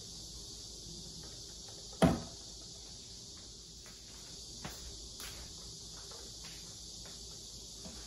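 A single sharp knock about two seconds in, followed by a few faint clicks, over a steady high-pitched hiss.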